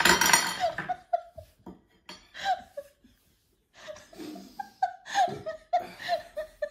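A person laughing in short repeated bursts that come and go, after a brief loud burst of noise right at the start.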